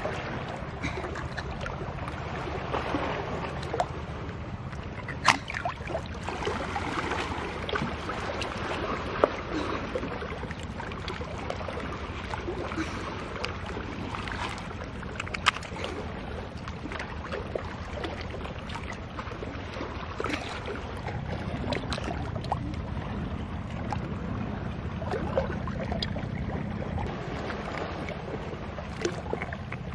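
Sea water lapping and sloshing against a rock with people standing in it, with a few sharp clicks as shells are knocked and pried off the rock.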